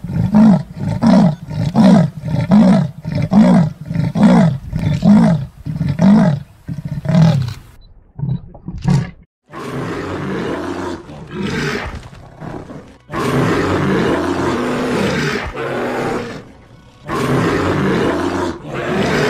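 Leopard giving its sawing call: a run of about a dozen hoarse grunts, roughly one every half second, fading out by about seven seconds in. From about ten seconds in, long growls with short breaks.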